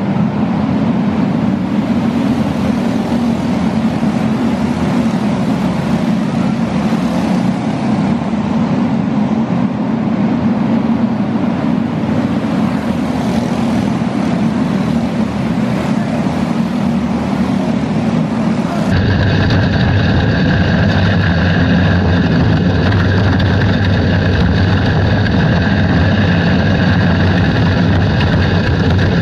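Outlaw dirt karts racing around an indoor dirt track, their small engines blending into a steady din. About two-thirds of the way in the sound switches abruptly to a single kart's engine heard from on board, a steady drone that holds its pitch.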